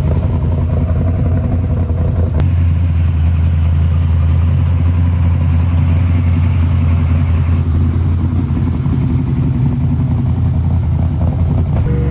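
Big-block Ford V8 of a trophy-truck-style Ford Ranger running steadily at idle, a low, even engine note with no revving.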